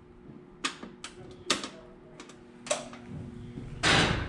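Sharp metallic clicks and knocks in a steel ship's compartment, about a second apart, from handling metal fittings and moving about, then a louder clatter near the end. A faint steady hum runs underneath.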